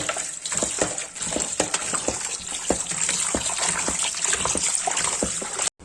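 Running tap water gushing over raw beef pieces being washed in a strainer, with frequent irregular small knocks and clatters as the meat is handled. It cuts off suddenly near the end.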